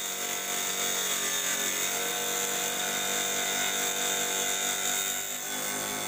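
Low-wattage (80–100 W) mini table saw running steadily, its blade cutting through a strip of 2 mm acrylic: a steady motor whine with a high cutting hiss.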